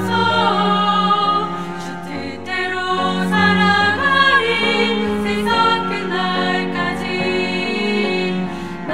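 Women's vocal ensemble singing a hymn in Korean in close harmony, with a cello accompanying on low held notes.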